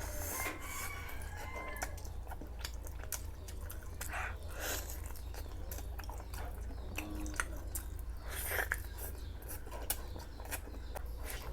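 Close-up chewing and lip-smacking of someone eating curry, chicken and rice: irregular wet smacks and clicks over a steady low hum.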